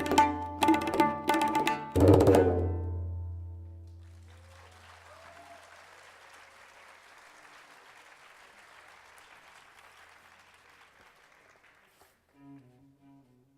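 Tabla strokes in a quick rhythmic phrase over a low sustained tone, closing on a strong resonant stroke about two seconds in that rings away. After a faint, hushed pause, cello notes begin near the end.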